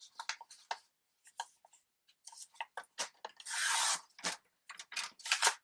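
Paper being handled on a paper cutter: scattered rustles and clicks, then a half-second hiss about three and a half seconds in as the cutter's blade is drawn across the sheet, followed by sharper clicks and taps near the end.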